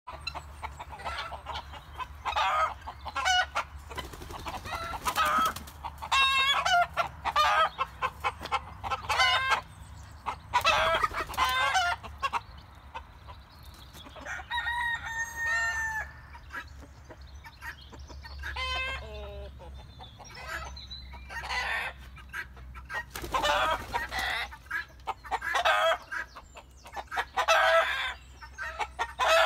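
A flock of free-range chickens clucking and calling as they gather to fly up to roost. A rooster crows once, about halfway through.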